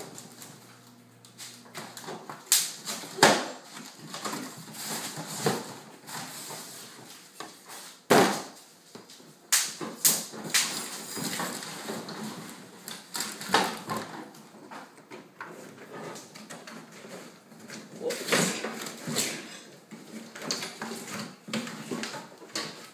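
Parts and packaging of a new lawn mower being handled: irregular knocks, clatter and rustling, with several sharp bangs.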